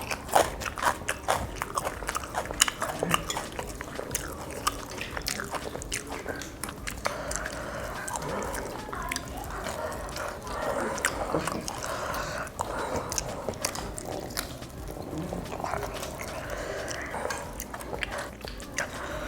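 Close-up eating sounds: chewing and biting food, with frequent crisp clicks and crunches.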